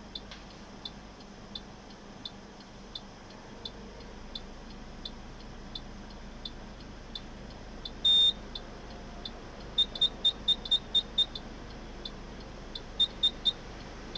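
Car's electronic warning beeper sounding short high beeps. Faint beeps come evenly about every 0.7 s, then one longer, louder beep about 8 s in, a quick run of about eight louder beeps near 10 s, and three more near 13 s.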